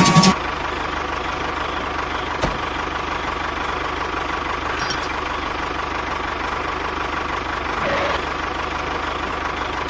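An engine idling steadily, with one sharp click about two and a half seconds in.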